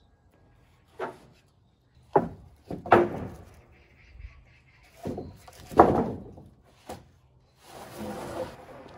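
Rough-sawn wooden boards knocking against each other as they are shifted on a lumber stack: about six separate thunks, the loudest about six seconds in, then a board scraping as it slides, near the end.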